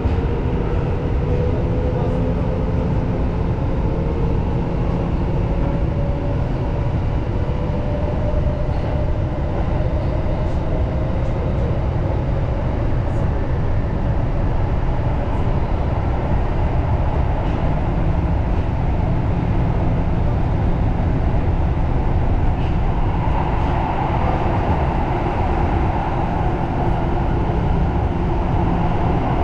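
Tokyo Metro Marunouchi Line train running on the rails, a steady rumble and rattle heard from inside the front car, with a motor whine rising slowly in pitch over the first several seconds as the train gathers speed, then holding steady.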